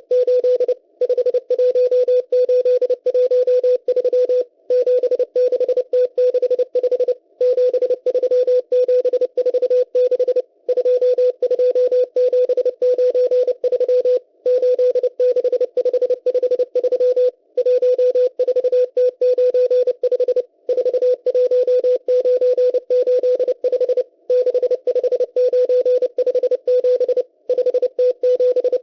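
M12 numbers station sending numbers in Morse code over shortwave radio: a single tone keyed rapidly on and off in dots and dashes, in groups broken by short pauses about every three to four seconds, with faint hiss behind the tone.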